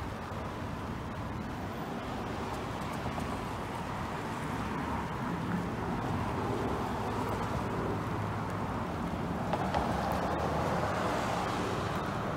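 Road traffic on a city street: a steady hum of passing cars' engines and tyres, growing a little louder toward the end.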